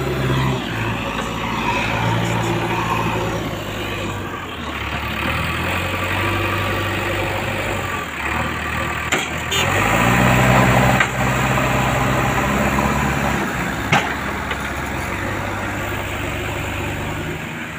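Diesel engine of a JCB backhoe loader running steadily near idle, revving up for a second or two about ten seconds in as its loader bucket is worked. A few short sharp knocks, the loudest about fourteen seconds in.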